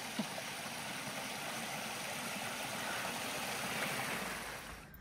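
Small woodland creek running over low rock ledges in little cascades: a steady rush of water, easing off near the end.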